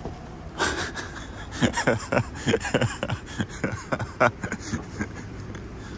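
A gloved hand knocking and drumming quickly and unevenly on a truck cab's side window, a couple of dozen sharp knocks that start about half a second in and stop shortly before the end.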